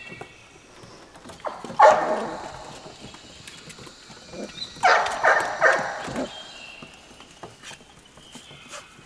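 Golden Retriever puppies about 4½ weeks old barking in high yips: one about two seconds in and a quick run of three or four around the middle, each falling away, with light ticks between them.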